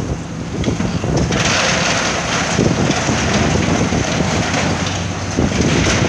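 Demolition machinery's diesel engine running steadily, with dense crunching and crashing of building debris that swells up about a second in and goes on with many small hits.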